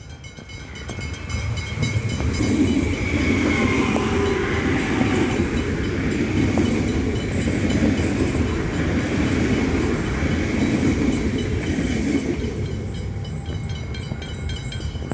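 Melbourne Metro suburban electric train passing close by at speed, its rumble of wheels on rails building over the first couple of seconds and dying away near the end.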